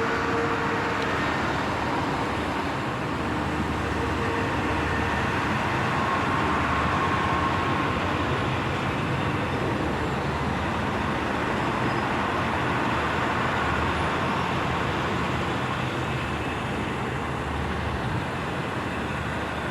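Northern Ireland Railways Class 3000 diesel multiple unit arriving at the platform: a steady running din, with a faint steady tone or two in the first few seconds.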